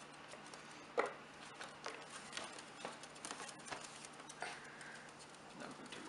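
Faint, scattered taps and clicks, the loudest about a second in, from pet parrots (a green-cheeked conure and a cockatiel) moving on a wooden tabletop and picking at a bowl of raw root-vegetable pieces.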